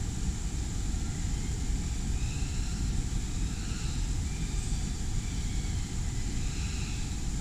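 Steady low rumbling outdoor background noise, with a few faint, short, high-pitched calls now and then.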